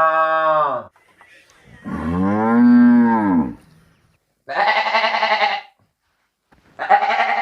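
A cow moos twice: two long calls that rise and then fall in pitch. In the second half they are followed by two shorter, quavering goat bleats.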